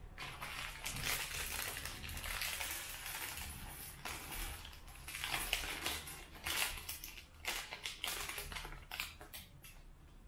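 Loose plastic Lego pieces being handled and sorted: uneven rattling and clattering with sharp clicks, quieter near the end.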